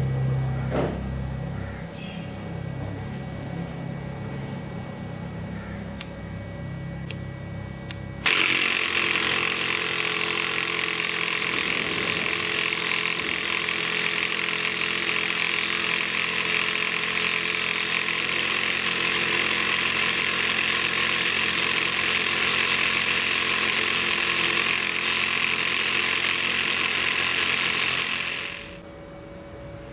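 Small DC motor of a homemade syringe air compressor, switched on about eight seconds in and running steadily as its crank drives the syringe piston to inflate a balloon. It stops near the end.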